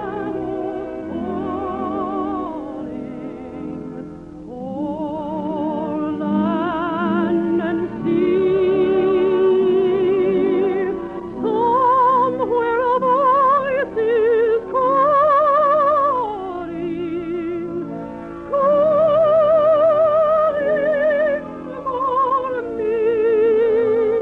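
Soprano singing operatically with wide vibrato in long held phrases over an orchestra, in an old radio recording that sounds narrow and dull.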